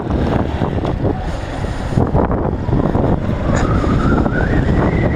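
Motorcycle riding off, wind buffeting the microphone over the engine noise. The engine's pitch rises in the second half as it accelerates.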